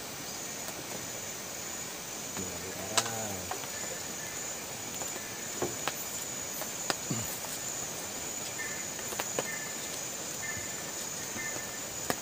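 Insects buzzing steadily in a high, even tone, joined past the middle by a second insect chirping in short on-off spells. A few sharp clicks of dishes sound now and then, and a man's voice briefly about three seconds in.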